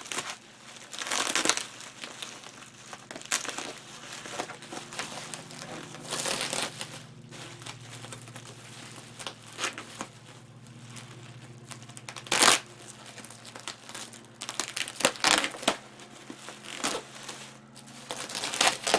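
Taped bubble wrap being pulled and unwrapped, crinkling and rustling in irregular bursts, with one sharp, louder crackle about twelve and a half seconds in.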